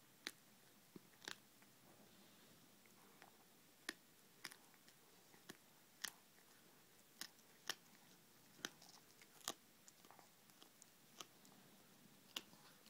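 A cat chewing and crunching through a bird it has caught, feathers and all: sharp, irregular crunches about once a second over a quiet background.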